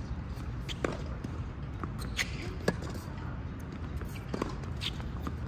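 Tennis rally on a hard court: several sharp pops of the ball being struck by rackets and bouncing on the court, spaced roughly a second apart, over a steady low rumble.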